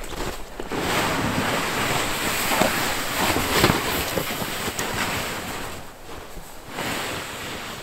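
A loaded plastic sled dragged over snow: a steady scraping hiss with a few crunching footsteps in it. It drops away about six seconds in as the sled moves off.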